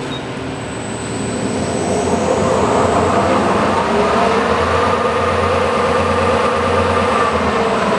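Clausing Metosa CNC-260 lathe's spindle and headstock drive running under power, a steady mechanical whine that climbs in pitch and loudness about two seconds in as the spindle speeds up, then holds steady.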